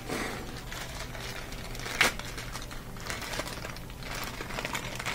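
Small plastic dishwasher rack adjuster parts being handled, with light rustling and clicking and one sharp plastic click about two seconds in.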